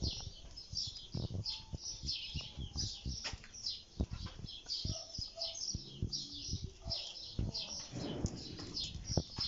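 Many small birds chirping and twittering without pause, with scattered clicks and knocks.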